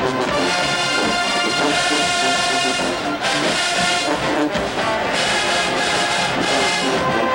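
College marching band playing a loud brass-heavy tune, trumpets, trombones and sousaphones together, with a brief break about three seconds in.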